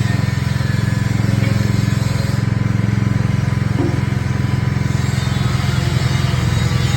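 Honda engine driving a coconut milk press machine, running steadily at a constant speed with an even, fast-pulsing drone.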